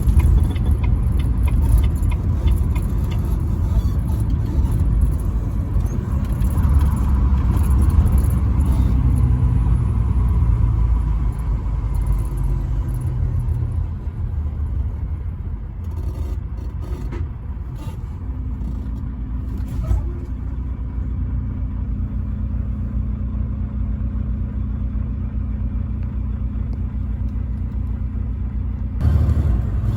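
Semi-truck driving at highway speed: a steady low engine drone and road rumble, with the engine's even hum coming through more clearly for the last third.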